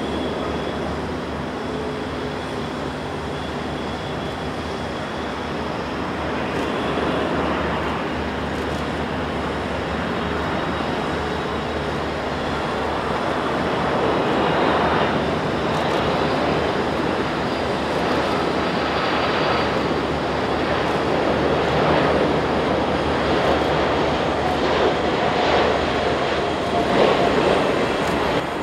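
Jet noise from a Boeing 747-400 freighter's four turbofan engines on final approach: a steady rumble with a faint whine, growing gradually louder as the aircraft comes closer.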